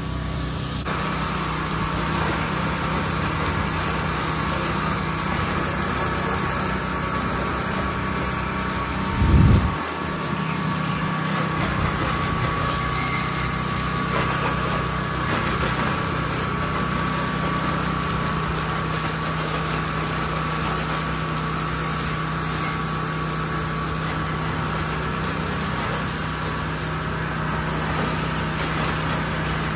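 Pressure washer engine running steadily with a constant hum. A brief loud thump comes about nine seconds in.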